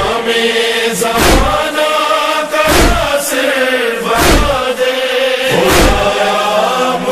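Noha interlude: a chorus of voices holding a steady chant over matam, rhythmic chest-beating thumps about every one and a half seconds.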